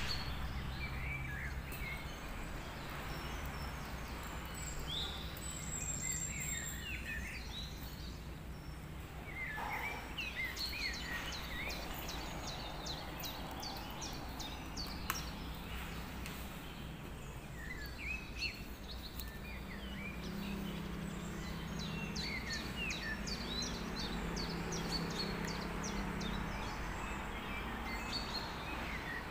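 Steady hiss and low hum of a pot of soup boiling on a gas stove, with small birds chirping on and off in the background and one sharp click about halfway through.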